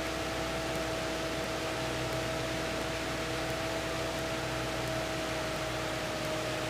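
A Cessna 172's engine and propeller running steadily at power, heard as an even hiss with a few faint steady hums, one of which sinks slightly in pitch near the end.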